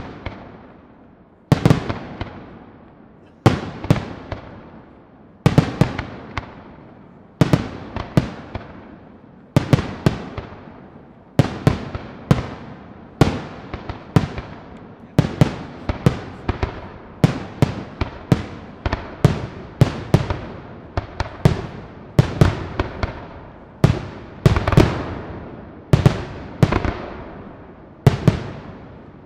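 Aerial firework shells bursting: sharp booms about every two seconds at first, then coming faster, about one a second, from about twelve seconds in, each followed by a rumbling echo that dies away.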